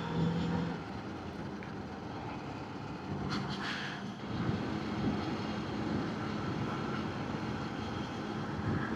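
Zontes 125 Scrambler X motorcycle running steadily while ridden along a road, its engine a faint hum under a steady rush of noise.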